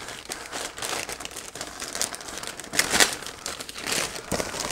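Clear plastic packaging bag crinkling and crackling as hands unwrap a folded fabric pet carrier, with a few louder crackles about three seconds in.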